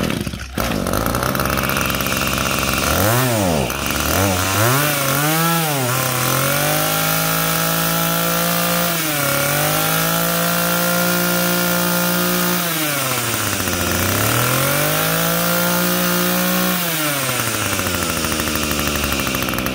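Echo 24 cc two-stroke brush cutter engine with an aluminium top end, being run up. It idles, is blipped twice, is held at high revs with a brief dip, falls back, revs high again, then drops back to idle for the last few seconds.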